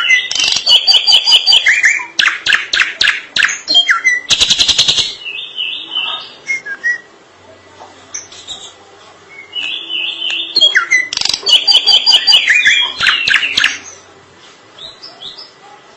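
Drongo (srigunting) singing: two loud bouts of varied whistled and chattering notes, the first with a fast harsh rattle about four and a half seconds in, separated by a few seconds of sparser, quieter notes.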